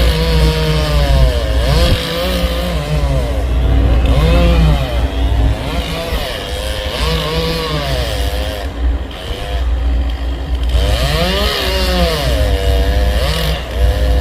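Chainsaw cutting a tree stem, its engine note repeatedly rising and falling as the throttle is squeezed and eased under load. A steady low engine drone runs underneath.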